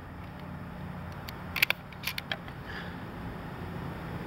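Sharp cracks about a second and a half in, and twice more within the next second, from a single-shot .22 LR rifle at the bench, over a steady low hum.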